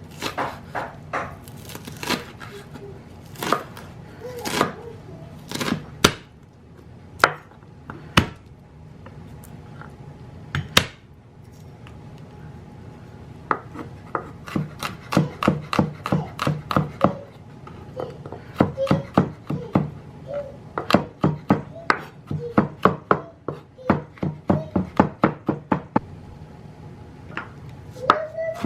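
Kitchen knife chopping on a cutting board: scattered single cuts at first, then quick runs of about five chops a second from the middle on.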